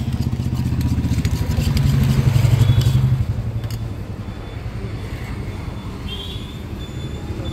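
Royal Enfield Electra 350's single-cylinder engine running, rising briefly with a blip of throttle in the first three seconds, then settling back to a steady idle.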